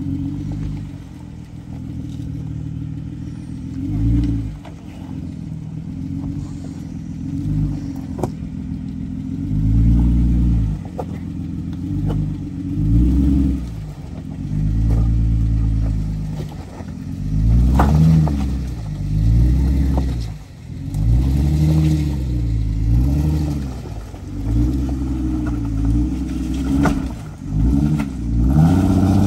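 Four-door Jeep Wrangler's engine at low speed, revving up and dropping back in repeated short throttle swells as it crawls over boulders. A few sharp knocks come through now and then.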